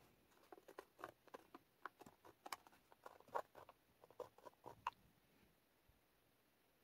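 Faint scratching and tapping of a pen tip tracing letters over a plastic stencil sheet: a quick, uneven run of small ticks that stops about five seconds in.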